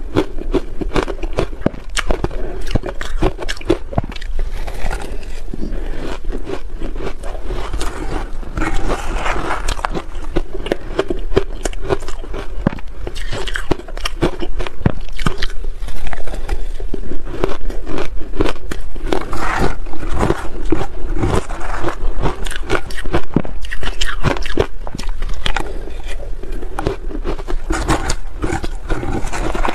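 Soft shaved ice coated in matcha powder being crunched and chewed, a dense run of crackling bites throughout, with a metal spoon scraping against the bowl.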